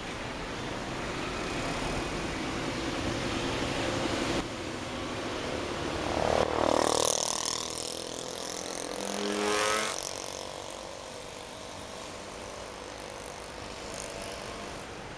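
Road traffic heard from a car driving through city traffic: a steady rush of engine and tyre noise. A vehicle passes close and loud about six to seven seconds in, and another engine swells and fades around nine to ten seconds.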